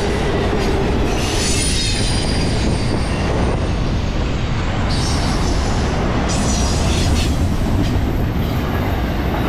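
Loaded double-stack intermodal well cars of a freight train rolling past at speed: a loud, steady rumble of steel wheels on the rails. High wheel squeals come in about a second and a half in, and again at around five seconds.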